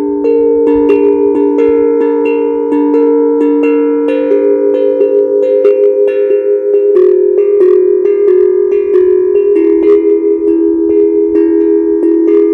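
Steel tongue drum (HAPI drum) played by hand: a steady stream of struck notes from a pentatonic scale, several a second, each ringing on and overlapping the next.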